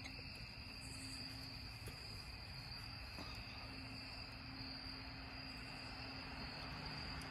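A steady, high-pitched chorus of night insects, like crickets, with a faint low hum underneath.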